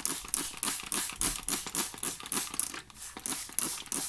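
Slushy slime of clear glue and instant snow, still sticky, being squished and kneaded by hand: quick repeated crackly squelches, about three a second.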